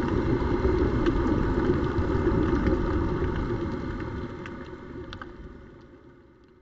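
Underwater ambience picked up by the camera: a low, steady rumble with scattered faint clicks, fading out over the last few seconds.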